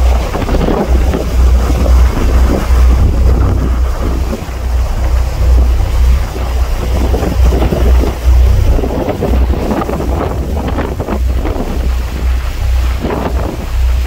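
Strong wind buffeting the microphone on the deck of a moving tour boat, in uneven gusts, over the rushing wash of water churned along the hull.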